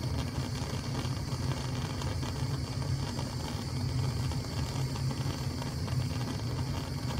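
Gas stove burner flame running with a steady low rumble.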